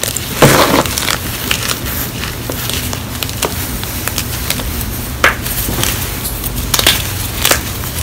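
Gym chalk blocks crunching and crumbling as they are squeezed and broken apart by hand. A loud crunch comes about half a second in, followed by scattered crackles, with sharper snaps at about five and seven seconds.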